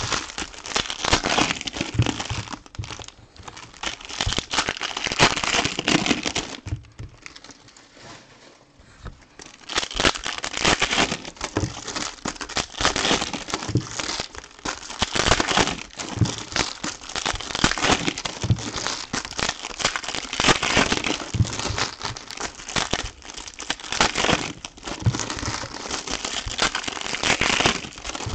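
Foil trading-card packs being opened by hand, the wrappers crinkling and crackling in quick, irregular bursts, with a quieter lull of a few seconds about a quarter of the way in.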